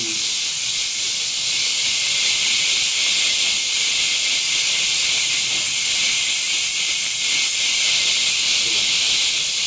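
Kitchen tap running steadily into a stainless-steel sink, a constant hiss of water.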